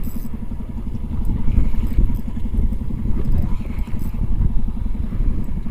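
A small boat's engine running steadily at low speed with a rapid, even putter, pushing the boat along while trolling a lure.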